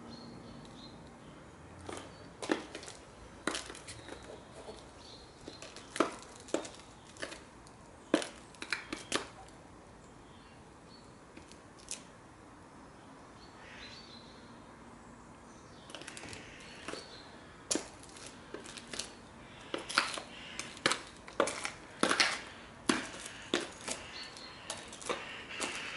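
Black T-bar stiletto heels clicking on stone paving slabs as the wearer steps: scattered single taps at first, then a quicker run of footsteps over the last ten seconds as she walks off.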